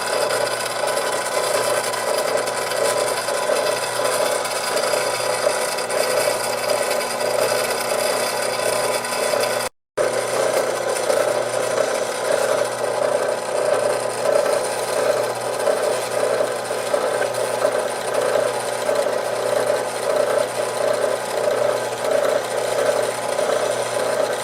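A small power tool grinding steadily as it cuts away part of a plastic guitar pickguard, with a brief dropout about ten seconds in.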